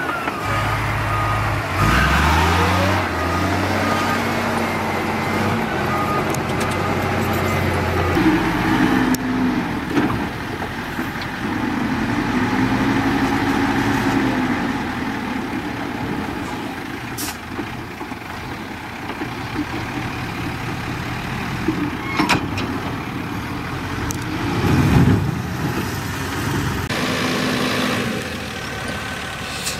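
Heavy diesel engines of dump trucks and a bulldozer running and revving up and down. A reversing beeper sounds in the first few seconds, and a few sharp knocks come later.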